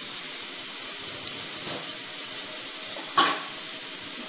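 Steady high hiss, with a brief rustle about three seconds in.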